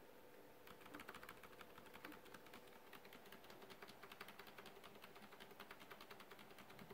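Faint, rapid clicking of a computer keyboard's F2 key, tapped again and again several times a second during the computer's boot to bring up the recovery menu. The clicks begin just under a second in.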